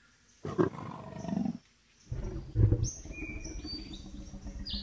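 A leopard growling: a short rasping growl about half a second in, then a longer, low rumbling growl from about two seconds in. Birds chirp faintly in the background during the second growl.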